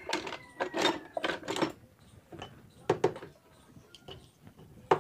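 A series of sharp clicks and knocks from tools being handled on a workbench while a TV circuit board is desoldered: a cluster in the first two seconds, two more around three seconds in, and a single sharp click near the end.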